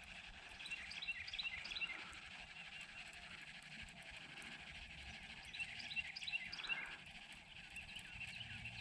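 A bird calling in two quick runs of short, high chirping notes, about five seconds apart, over a faint steady outdoor background.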